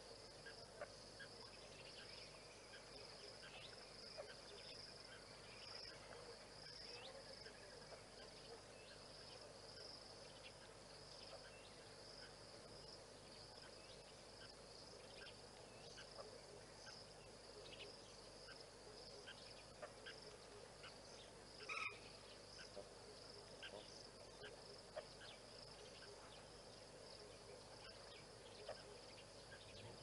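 Faint, steady high-pitched insect chorus that runs without a break, with many short scattered chirps over it and one brief louder chirp about two-thirds of the way through.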